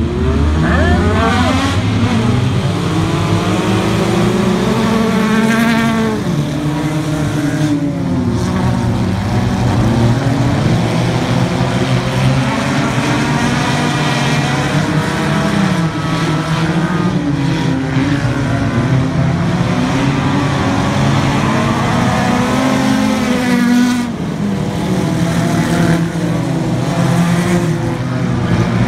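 A field of sport compact race cars running on a dirt oval: several small engines rev and accelerate at once, their overlapping pitches rising and falling as the cars go around.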